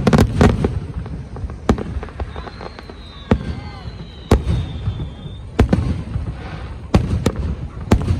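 Fireworks display: about a dozen sharp bangs in irregular succession, several close together at the start and near the end, with rumbling echoes after them. A high thin whistle slides slightly downward through the middle.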